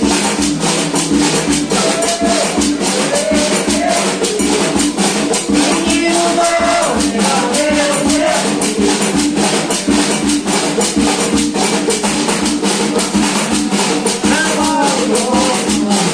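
Terecô doutrina music: drums and maraca rattles playing a fast, steady beat, with voices singing a chant over it.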